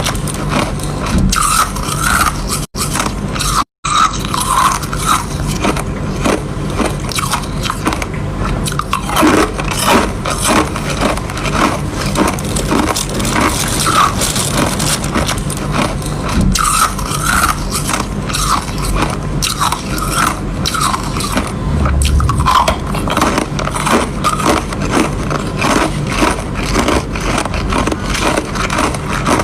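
Ice being bitten and chewed close to the microphone: continuous loud, irregular crunching and crackling, broken by two very short gaps a few seconds in.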